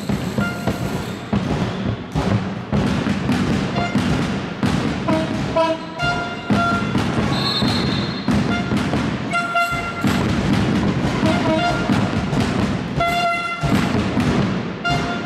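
Handball game noise in a sports hall: a steady run of sharp thuds and knocks, about three a second, over a constant din. Short high squeaks recur every couple of seconds.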